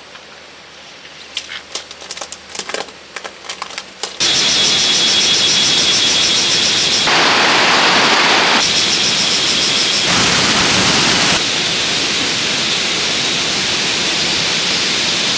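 A few light clicks, then loud, steady rushing water of a forest stream starting abruptly about four seconds in, with a high pulsing insect trill over it in parts.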